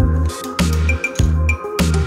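Electronic background music with a deep bass line and a steady drum beat.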